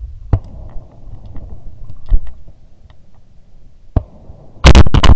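Shotgun fired at flying Canada geese: two loud blasts in quick succession near the end, after a few light knocks of the gun being handled.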